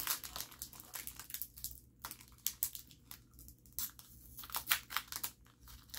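Trading cards being handled and flipped through: irregular crinkling and short, light snaps of card.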